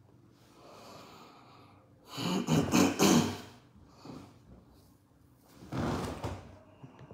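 A man's loud breaths close to the microphone, two of them: one about two seconds in lasting about a second, and a shorter one near six seconds in.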